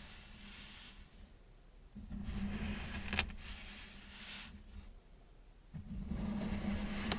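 Kinetic sand being scraped and cut with a metal tool: gritty scraping and rustling in separate stretches, with two short pauses between them.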